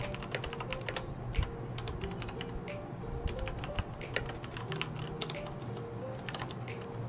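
Computer keyboard typing: quick, irregular keystrokes throughout, over steady background music.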